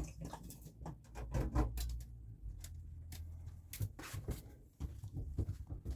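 Handling noises: scattered clicks, knocks and rustling as a wire and stored items are moved about, with a low thud about one and a half seconds in.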